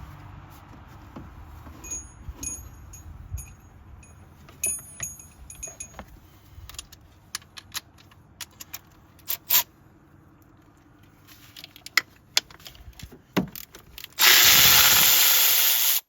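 Spark plug wire boots being worked loose by hand in the engine bay: scattered clicks, knocks and light metallic jingles. Near the end comes a loud, steady hiss lasting about two seconds.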